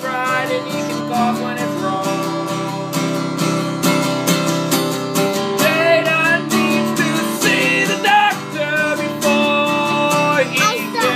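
Strummed acoustic guitar with a voice singing over it, a home-made song.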